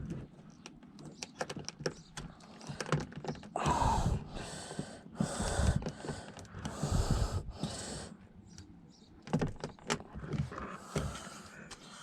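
Interior door panel of a Saab 9-5 being worked loose from the door by hand: a run of sharp plastic clicks and knocks, then several short rushing scrapes, and a few more knocks near the end.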